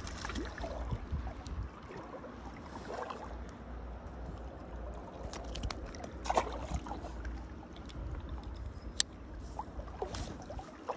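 Shallow river water rippling and trickling steadily under a low rumble, with a few sharp clicks from the fishing tackle being handled; the sharpest come about six and nine seconds in.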